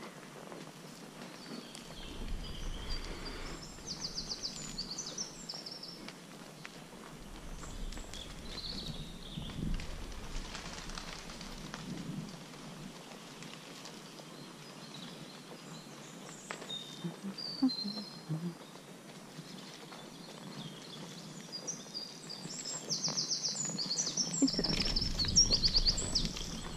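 Songbirds trilling in woodland, in quick repeated trills near the start and again, louder, near the end. Under them are the soft, uneven footfalls of a horse walking on a sandy forest track and, at times, a low wind rumble on the microphone.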